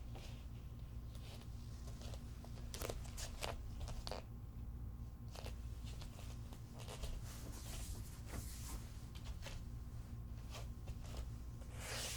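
Bare feet walking on a hard floor: irregular soft footfalls, some with a longer scuff or peel of skin, over a steady low room hum.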